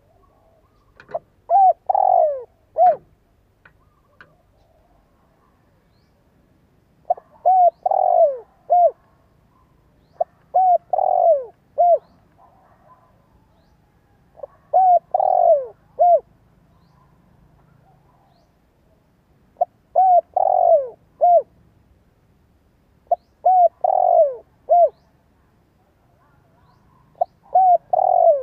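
Spotted dove (cu gáy) cooing, a male's decoy call. Seven phrases about every three to four seconds, each a short coo, a longer coo falling in pitch, then a short closing coo.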